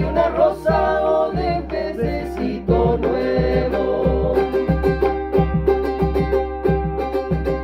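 Latin American folk trio playing: singing over strummed and plucked string instruments. The voices drop away about four seconds in, and the strings carry on in a quick, even rhythm.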